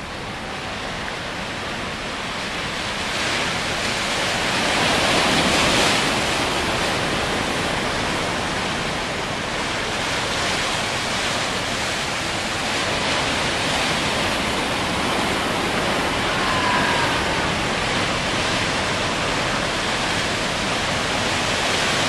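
Small waves washing and breaking against the shoreline, a steady rushing surf that swells about five seconds in.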